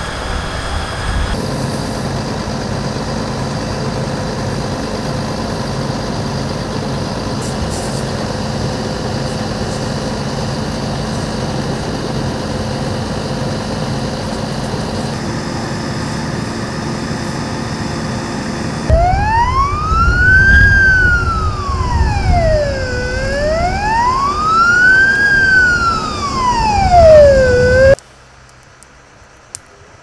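Fire truck running steadily while its hose sprays water on burnt ground. Then a loud wailing fire-truck siren rises and falls slowly through two full sweeps and cuts off suddenly, leaving only faint ticks.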